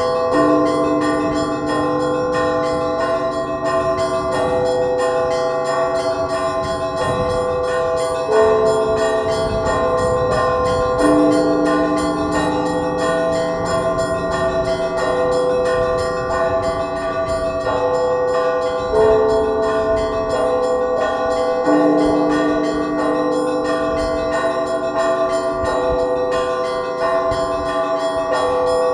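Russian Orthodox church bells rung by hand in a matins peal: several bells sound together in a continuous rhythmic pattern, with small bells chiming over deeper bells and heavier strokes every few seconds.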